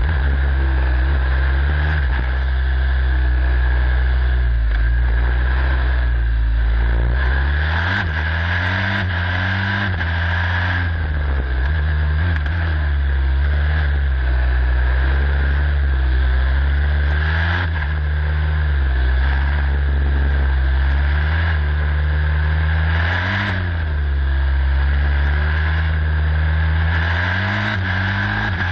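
Onboard sound of a Formula Student race car's turbocharged engine, repeatedly revving up under acceleration and dropping back for braking through the low gears, over a steady hiss.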